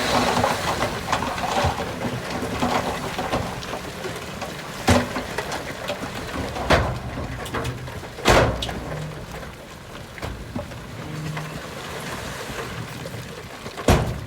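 Shantui DH17C2 bulldozer working, its engine running under a steady noisy rush, with several sharp knocks and clatters scattered through, the loudest about eight seconds in.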